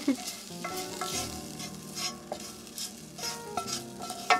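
Utensil scraping hot sautéed kale onto sauced pasta in a pot: a run of short scraping strokes and light crackling from the freshly cooked greens. Soft background music with held notes plays underneath.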